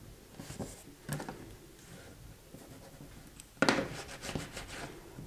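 Paper and card being handled and rubbed down by hand as glued cover paper is worked onto a book-box board, with soft scattered rustles and a sharp knock about three and a half seconds in.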